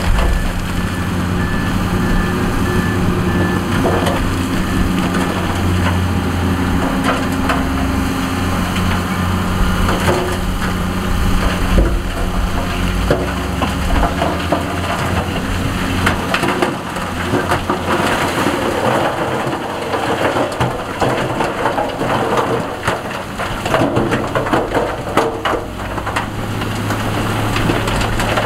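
Heavy diesel machine's engine running steadily while big rocks grind, scrape and clatter against each other and the steel, with a dense crackle of rock that thickens in the second half.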